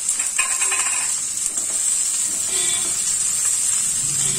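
Freshly added chopped onions sizzling in hot mustard oil in a nonstick kadai, a steady high hiss. A spatula begins stirring them near the end.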